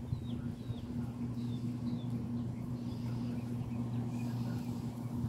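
A steady low hum runs throughout, with short, high, falling bird chirps several times over it.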